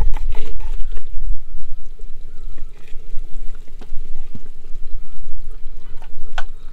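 Metal ladle knocking and scraping against a clay cooking pot and a steel plate as thick chicken gravy is spooned out, a few light clinks in all. Under it a steady low rumble of wind on the microphone.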